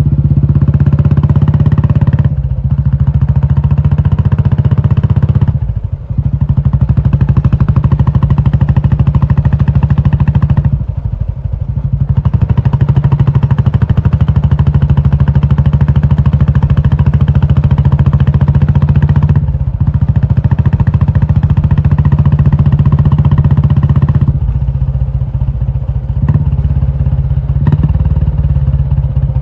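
Royal Enfield Classic 350's single-cylinder engine running loud through an aftermarket Indore exhaust, a steady low thump. The level drops briefly about five times, and the engine runs lower over the last few seconds.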